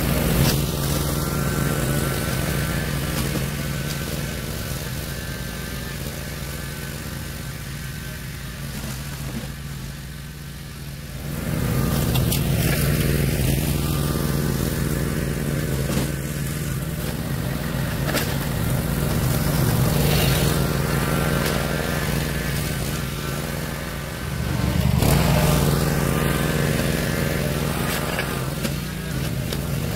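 Zero-turn riding mower's engine running steadily. It fades a little and comes back strongly about twelve seconds in and again near the end as the mower moves about.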